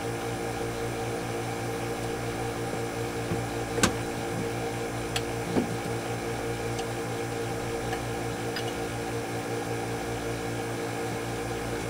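Steady machinery hum in an engine room, with a few sharp metallic clinks of hand tools on the generator's mounting nuts and bolts, the loudest about four seconds in.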